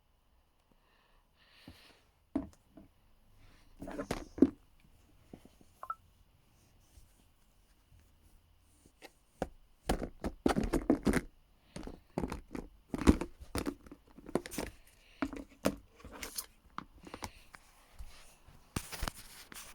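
Handling noises: irregular knocks, clicks and crinkling rustles of objects being picked up, moved and set down, coming in clusters, with the busiest stretch about halfway through and another near the end.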